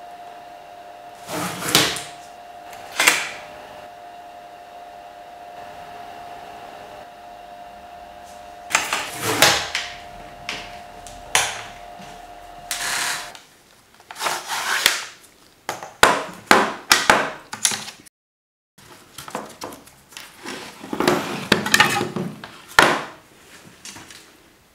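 Wooden knocks, clacks and sliding scrapes from a large-format wooden view camera being handled, such as fitting the plate holder at its back, over a faint steady hum that stops about halfway through. Near the end come clicks and rustling as a wet glass collodion plate is handled in a developing tray.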